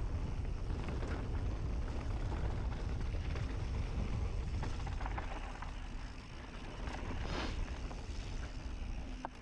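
Wind buffeting a mountain bike's ride-along camera microphone, with scattered clicks and rattles from the bike on a dirt trail. The rumble eases after about six seconds, swells briefly, then drops off near the end as the bike slows.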